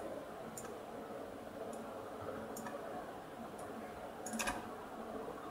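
A few short, sharp computer mouse clicks over faint steady room noise, with a quick cluster of clicks about four and a half seconds in, the loudest of them.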